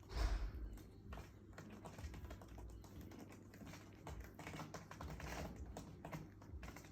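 A Selkirk Rex mother cat licking her kitten's fur: a faint, irregular run of quick soft clicks from her tongue, with a louder brief rustle right at the start.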